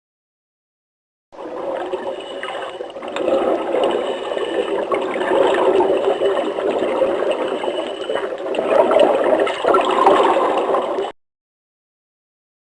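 Moving water, a fluctuating rush that starts a little over a second in and cuts off abruptly about a second and a half before the end.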